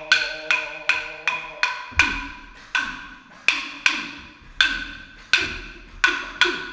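Aboriginal wooden clapsticks struck together in a steady beat, sharp wooden clicks with a bright ring. About two and a half strokes a second at first, slowing after about two seconds to roughly one and a half a second, the later strokes with a low thud beneath them.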